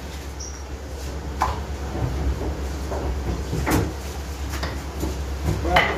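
Sharp knocks, about three in six seconds with a few lighter taps between, as flatbread dough is pressed and rolled out on a round board with a wooden rolling pin, over a steady low hum.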